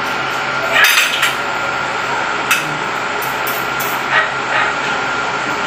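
Spoon and fork clinking a few times on a ceramic plate, over the steady hiss and thin whine of an air conditioner.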